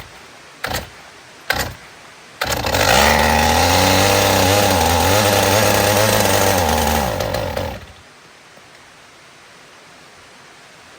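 Makita DCS 341 two-stroke chainsaw being pull-started: three short bursts, then it catches and runs for about five seconds at a slightly wavering speed before dying out. The long-unused saw is not yet running reliably.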